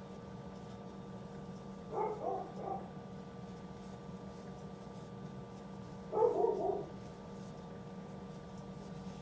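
A dog barking in two short bouts, about two seconds in and again about six seconds in, the second one louder, over a steady low hum.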